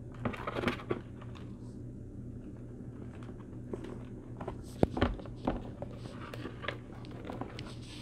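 Dry substrate crumbling and sliding out of a tipped plastic container into a plastic tray, with scattered rustles, crackles and light taps of the container; one sharper knock about five seconds in.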